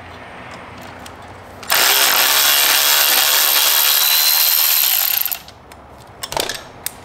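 Handheld power tool running steadily for about three and a half seconds, starting about two seconds in and then stopping, as it spins out a motorcycle bolt with a T30 Torx bit. A few sharp clicks follow near the end.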